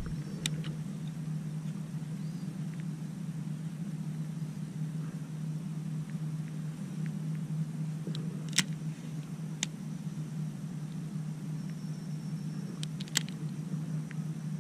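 A steady low motor hum with a few sharp clicks and taps over it.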